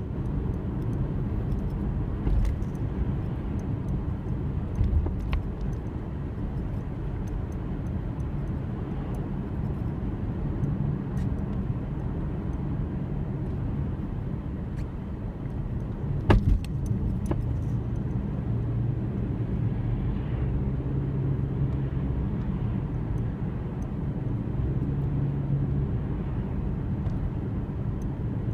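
Steady low rumble of a car running, with a few faint ticks and one sharp click about sixteen seconds in.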